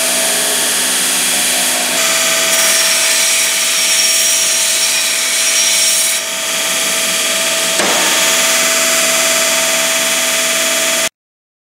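Scotchman abrasive pipe notcher/grinder running with a steady whine while it grinds a notch into the end of a steel pipe. The sound cuts off suddenly near the end.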